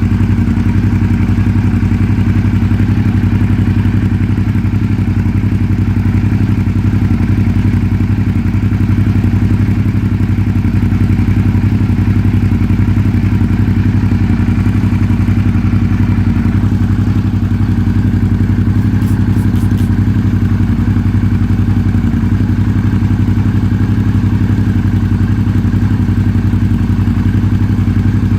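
Suzuki V-Strom DL650's V-twin engine idling steadily.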